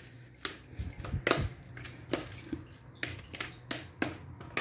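Diced raw chicken breast in a yogurt and spice marinade being mixed by hand in a plastic tub: irregular wet squishes and light knocks against the tub, a few a second.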